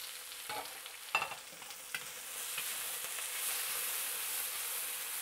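Beef, with its juices, sizzling in a hot wok as it is stirred with a metal wok spatula. A few sharp clinks of the spatula on the wok come in the first two seconds, and the sizzle grows louder from about two seconds in.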